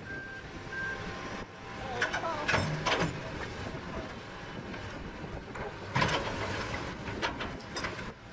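Diesel engines of a Hitachi excavator and a backhoe loader running under load, with several sharp knocks, loudest about two and six seconds in. A beeping alarm repeats at one pitch and stops about a second in.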